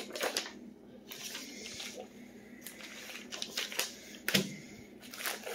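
Packing paper rustling and crinkling as it is handled, in scattered uneven bursts, with one sharper crackle a little over four seconds in.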